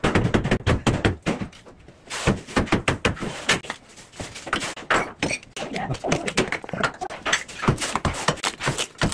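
Manual bathroom demolition: irregular knocks, thuds and clatter of ceramic wall tiles being broken loose and falling, with a brief lull about two seconds in.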